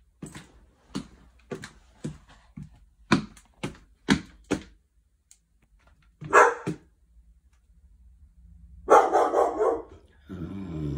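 Dog barking from out of view: a run of short sharp barks about two a second, then a louder double bark after a pause, and a longer rough burst near the end.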